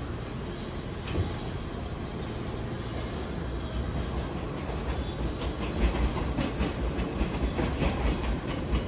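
JR East E001 series Train Suite Shiki-shima cruise train pulling out at low speed, its cars rolling past with a low rumble that grows louder from about five seconds in, when a run of wheel clicks over the rail joints begins.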